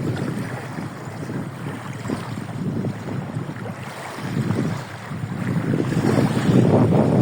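Waves of a gulf washing in on the shore as a steady rush, easing off in the middle and swelling louder again near the end as a larger wave comes in.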